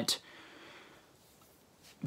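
A pause in a man's speech: the tail of a word, then a faint breath for under a second, then near silence.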